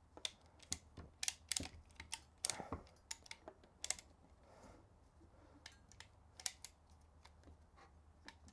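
Apollo ratcheting PEX-B pinch clamp tool clicking as its handle is squeezed over and over to crimp a stainless steel pinch clamp onto PEX tubing over a barbed fitting. The clicks are sharp and irregular, coming quickly in the first four seconds, with a few more later.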